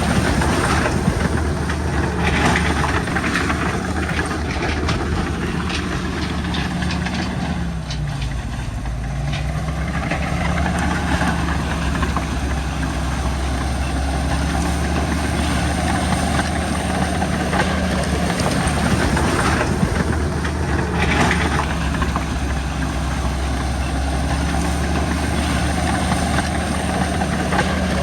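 Komatsu crawler bulldozer's diesel engine running under work with the clanking rattle of its steel tracks. The engine note sags briefly about eight seconds in, then picks back up.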